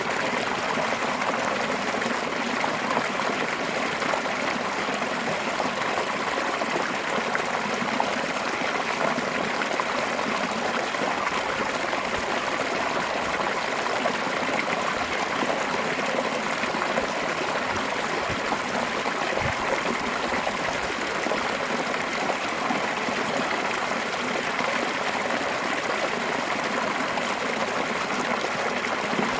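Fast-flowing mountain stream water spilling over a small drop, a steady rushing and splashing that never changes.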